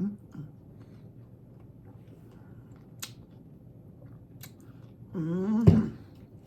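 Someone eating a crispy tostada: a few sharp crunches and mouth noises of chewing, with a short voiced sound about five seconds in.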